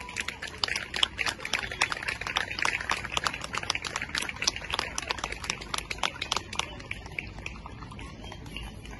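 Light applause from a small group of onlookers, the separate claps distinct, thinning out towards the end.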